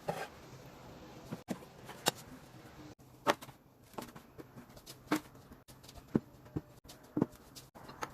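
A utensil tapping and clinking against a dish: short, sharp clicks at irregular spacing, about one every half second to second.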